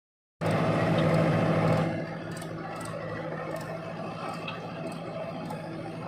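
Diesel engines of a JCB 3DX backhoe loader and a tractor running. The sound is louder for about the first two seconds, then eases to a steady lower running note.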